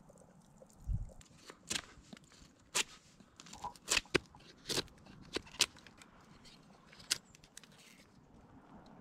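Knife carving a wooden spoon blank: a run of sharp, irregular cutting strokes, about nine of them spread over several seconds, with a dull knock about a second in.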